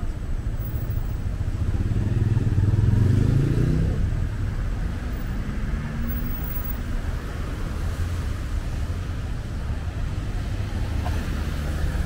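Street traffic: a steady low rumble of passing vehicles, with one vehicle's engine accelerating past, rising in pitch and loudest about two to four seconds in.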